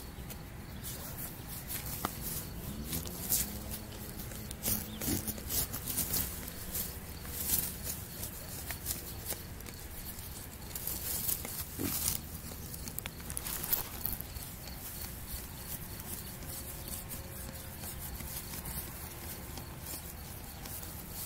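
A hand rubs and scratches a sleeping pig's bristly hide on grass, making repeated short rustling scrapes. A low, drawn-out animal sound rises slightly and carries on for about three seconds, beginning a couple of seconds in.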